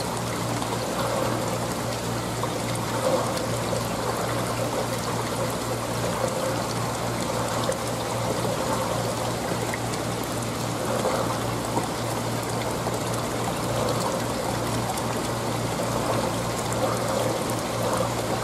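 Aquarium water circulation trickling and splashing steadily, with a constant low hum underneath.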